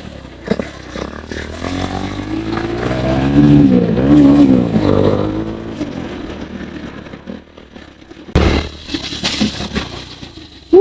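Modified Bajaj Pulsar 220F single-cylinder engine with a midfield exhaust revving, its pitch rising and falling twice, then dying down. About eight seconds in comes one short, loud bang, the kind of exhaust pop made when riders tune for misfire sound.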